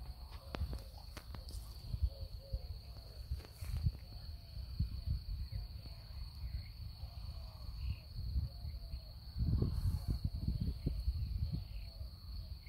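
Outdoor ambience: wind rumbling on the microphone in uneven gusts, loudest about ten seconds in, under a steady high-pitched whine.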